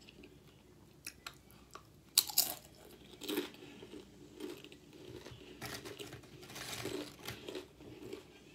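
Spicy Doritos tortilla chips being bitten and chewed: a run of sharp, dry crunches, the loudest a little after two seconds in, then more bursts of crunchy chewing.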